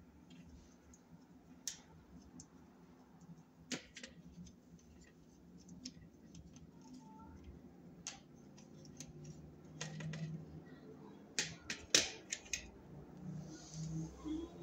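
Scattered small clicks and taps of a jeweler's screwdriver and thin thermostat wire on the terminal screws of a plastic Honeywell thermostat wall base as a wire is fastened under a terminal. The loudest cluster comes about twelve seconds in, over a faint low hum.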